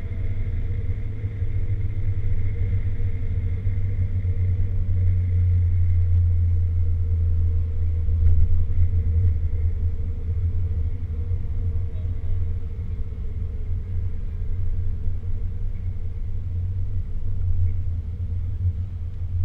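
Porsche 996 Turbo's twin-turbo flat-six running steadily while driving, heard from inside the cabin as an even low drone.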